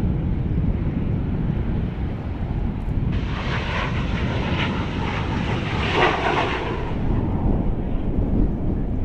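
Kawasaki T-4 jet trainers flying past. The jet noise comes in suddenly about three seconds in, is loudest around six seconds, and cuts off sharply a second later. Low wind rumble on the microphone runs underneath.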